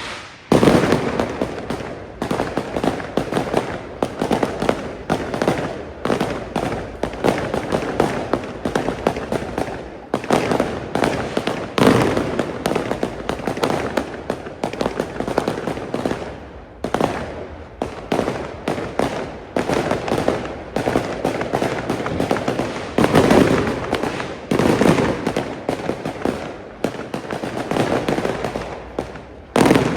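Fireworks going off in rapid succession, a dense run of bangs and crackles with no pause.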